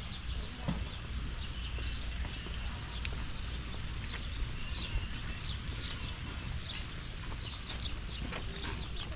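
Many small birds chirping continuously, short quick calls overlapping one another, over a steady low rumble.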